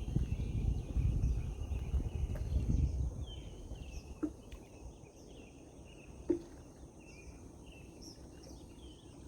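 Birds chirping in short repeated calls over a steady high insect hum. A low rumbling noise in the first three seconds then drops away, and two short low sounds come about four and six seconds in.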